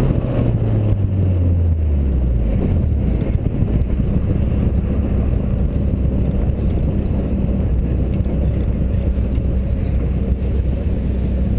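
Turbocharged Honda D16 four-cylinder engine in a Civic, its revs falling over the first couple of seconds and then holding low and steady, with heavy wind and road noise.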